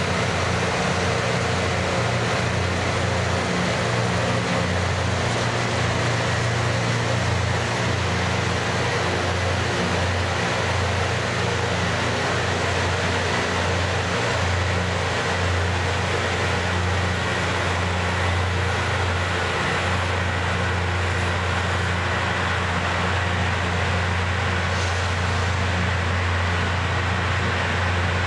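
Loram rail grinder passing at work: the steady grinding of its rotating stones on the rail over the low drone of its diesel engines.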